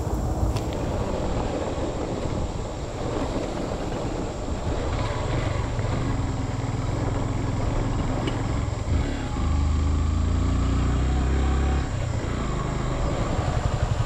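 Motorcycle engine running at low speed on a dirt track, its pitch shifting with the throttle, with a louder steady stretch about two-thirds of the way through.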